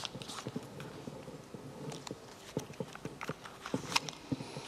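Irregular light knocks and clicks, about a dozen scattered through, over a faint steady hum.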